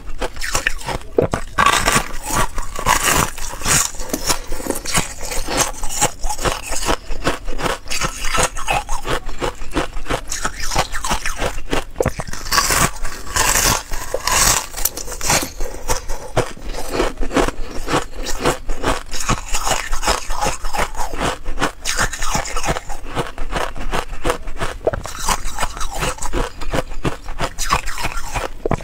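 Thin sheet of ice being bitten and chewed, a steady stream of sharp crunches and crackles as the ice snaps into shards.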